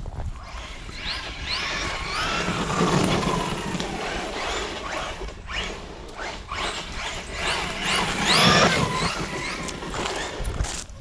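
Maverick Quantum+ Flux RC monster truck's brushless electric motor whining up and down in pitch under bursts of throttle, over tyre noise. The loudest surges come about two seconds in and again about eight seconds in.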